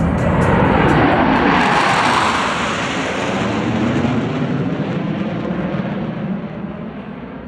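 Blue Angels F/A-18 jet flying past: loud jet noise with a sweeping whoosh that peaks a second or two in, then slowly fades as the jet moves away.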